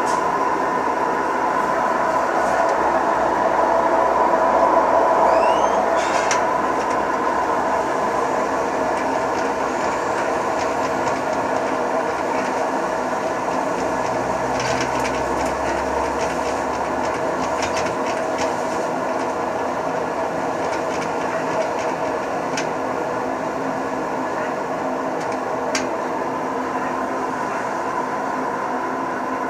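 Whirlpool 15 kg washing machine running with a steady mechanical drone and whine, swelling slightly a few seconds in, with a few faint clicks. This is the noise the owner puts down to its bearings.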